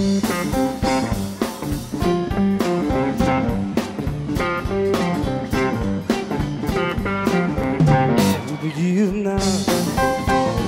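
Live blues-rock band playing an instrumental passage: electric guitar lead over drums and bass. The drums and bass drop out briefly about eight seconds in.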